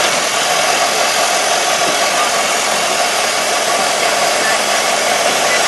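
Ford Model T's four-cylinder engine running as the open car drives along at a steady speed, heard as a loud, even rush of engine, wind and road noise that holds level throughout.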